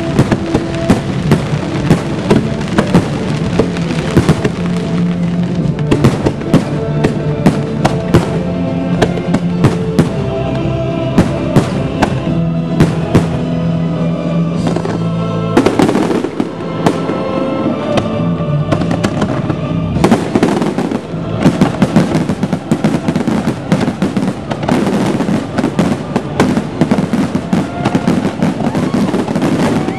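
Fireworks display: a rapid, continuous run of sharp reports and crackling bursts, several a second, over a music soundtrack, with heavier volleys about halfway through and again about two-thirds of the way in.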